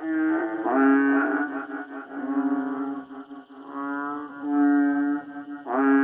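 A toad calling: a series of low, buzzing trilled notes, each about half a second to a second long, repeated about six times with short gaps.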